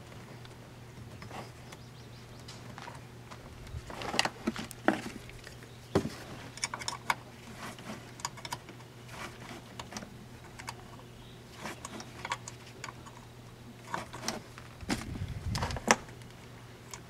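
Scattered clicks, taps and light knocks of wiring being handled and a ring terminal being fitted onto a golf cart solenoid's coil terminal. They come in clusters, busiest about four seconds in and again near the end, over a steady low hum.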